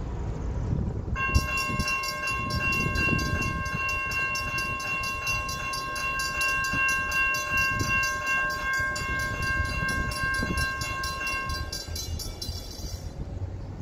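Railroad level-crossing warning bell ringing in rapid, even strokes while the crossing gates come down. It starts about a second in and stops just before the end.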